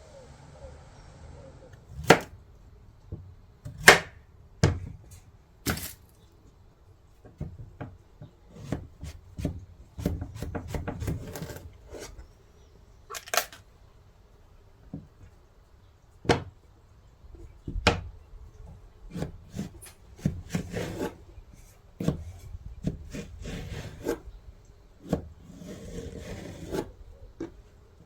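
Irregular knocks and taps on a wooden cutting board as vegetables are handled and cut, with short stretches of rubbing and rustling between them.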